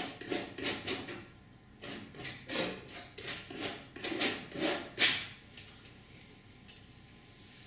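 Flexible painting knife scraping and rubbing oil paint onto a stretched cotton canvas in a quick series of short strokes, the loudest about five seconds in, after which the scraping stops.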